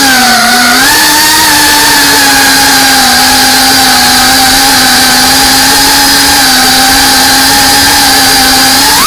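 Drone electric motors and propellers whining at a nearly steady throttle, the pitch dipping briefly about half a second in and then holding level.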